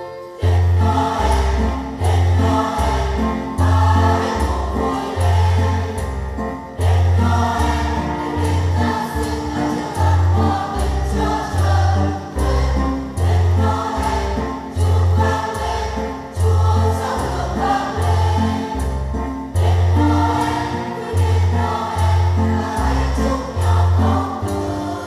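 Choir singing a song over instrumental backing, with a bass line stepping between notes in a steady beat.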